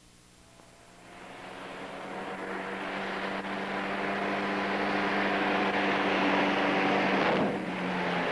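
Ford pickup truck driven fast on a dirt road, its engine drone and road noise growing steadily louder as it approaches and comes close by, with a brief dip about seven and a half seconds in.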